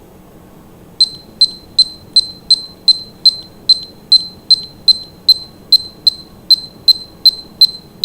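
Digital kitchen timer beeping, a quick even run of short high-pitched beeps about two or three a second starting about a second in, as its minutes are stepped up towards 20.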